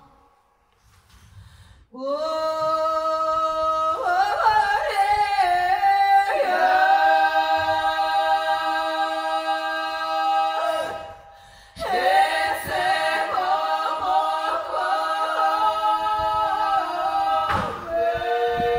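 Women's voices singing a cappella in close harmony, in a traditional Ukrainian vocal style, with long held notes and ornaments. The voices come in one after another around two and four seconds in, drop out briefly near the middle, then start again.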